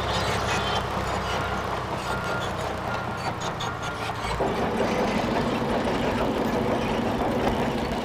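Bulldozer's diesel engine running steadily, its sound changing about four and a half seconds in.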